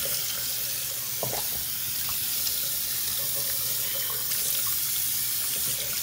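Bathroom sink faucet running steadily, the water splashing over a puppy being rinsed under it and into the basin.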